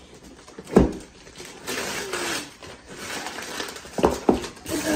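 A gift-wrapped box being handled on a table: a thump about a second in, wrapping paper rustling, then two sharp knocks near the end.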